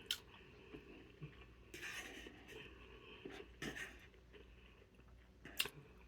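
Quiet eating sounds: a few faint clicks and a soft scraping rustle about two seconds in, from utensils and food handled at the table.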